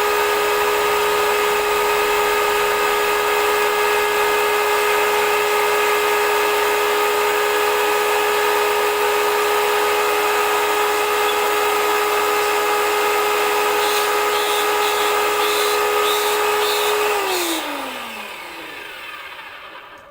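Brushed electric motor and pump of a high-pressure jet washer running with a steady high whine. About three seconds before the end it is switched off, and the whine falls in pitch and fades as it winds down.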